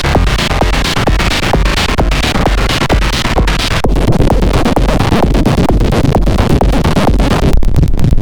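Gritty electronic industrial music with a steady, fast beat; its texture changes about four seconds in.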